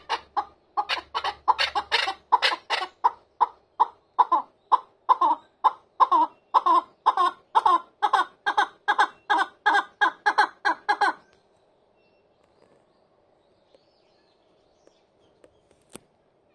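Chukar partridge calling, a long run of clucking chuk notes about three a second that stops abruptly about eleven seconds in. A faint steady hum is left, with a single sharp click near the end.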